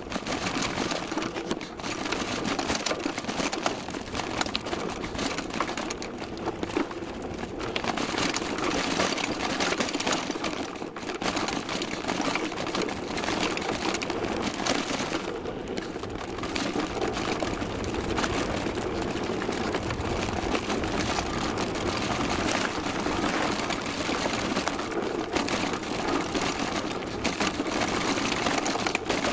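Downhill mountain bike running over a rough dirt trail: a steady dense clatter of rattling and knocking with tyre noise, picked up by a camera taped to the front fork.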